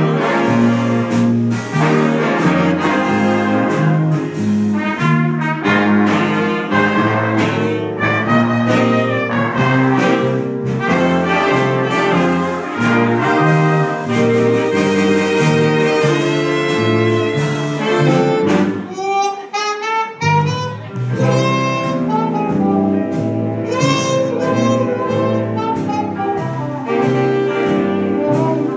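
Live big band playing a jazz tune, saxophones, trumpets and trombones together over a rhythm section. About two-thirds of the way through the bass drops out briefly under a lone sliding horn phrase before the full band comes back in.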